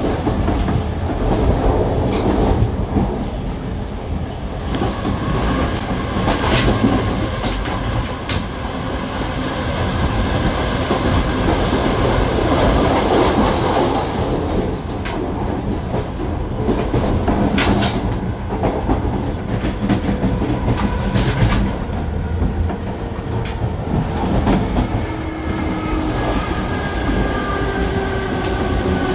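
Ex-Renfe Spanish-built série 2100 electric multiple unit running, with a steady rumble and wheels clicking over rail joints again and again. Near the end a whining tone slides in pitch.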